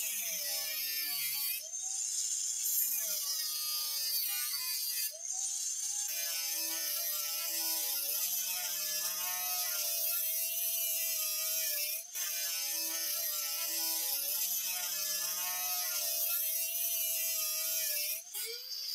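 Angle grinder with a cut-off disc cutting through sheet steel: a steady high hiss of the disc in the metal over the motor's whine, which wavers in pitch as the disc is pushed into the cut and eased off. The sound drops briefly a few times, and near the end the motor speeds back up as the load comes off.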